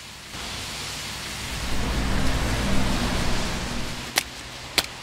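Steady rain, with a low rumble that swells and fades in the middle. Near the end, two sharp footsteps on wet pavement.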